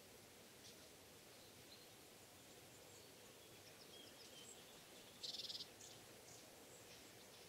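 Quiet woodland ambience with faint, scattered high bird chirps, and one short rapid trill about five seconds in.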